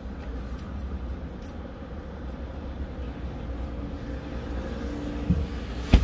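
Steady low rumble of vehicles heard from inside a stopped car, with a thump and then a sharp knock near the end.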